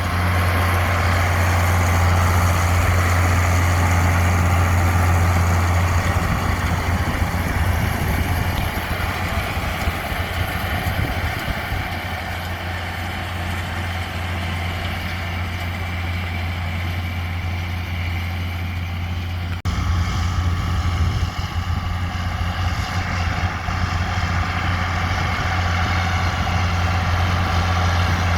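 Tractor engine running steadily with a deep, even hum. About two-thirds of the way through the sound changes abruptly and gets a little louder.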